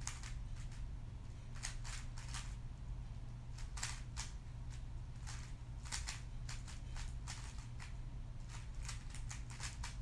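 A 3x3 speedcube being turned fast during a timed solve: sharp plastic clicks and clacks of the layers snapping round, in quick irregular clusters. A steady low hum lies underneath.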